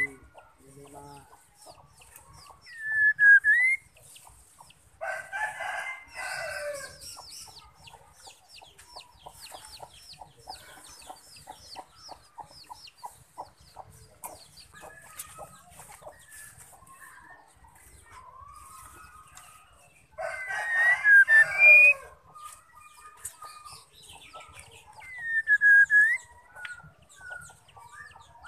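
A rooster crowing twice, about five seconds and about twenty seconds in, the loudest sounds in the stretch. Between the crows, a female white-rumped shama gives short whistled calls that dip and rise in pitch, with soft ticking calls.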